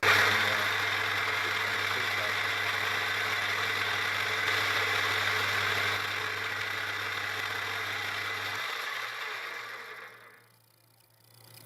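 Milling machine running a countersink: the noisy machine starts abruptly, runs steadily with a low hum and a loud hiss, eases slightly about six seconds in, then winds down and stops at about ten seconds.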